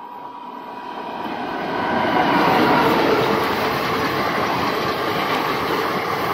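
Passenger express hauled by a WAP-4 electric locomotive passing close by: the noise of the locomotive and coaches running over the track builds over the first two seconds, then holds steady as the coaches go past.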